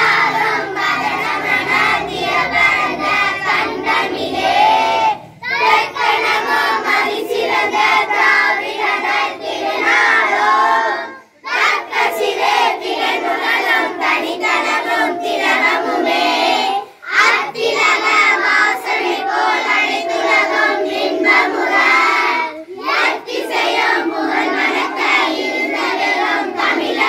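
A group of children singing together in unison, in long phrases broken by short pauses about every five to six seconds.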